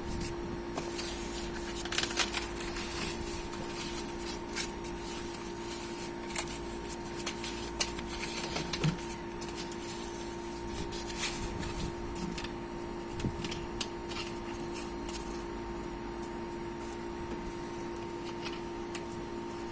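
A steady machine hum with scattered light clicks and rustles of something being handled.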